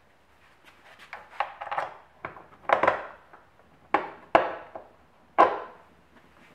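A plunge router's base and small metal washers being handled and set down on a wooden workbench top: a handful of sharp, irregularly spaced knocks and clinks with softer ticks between.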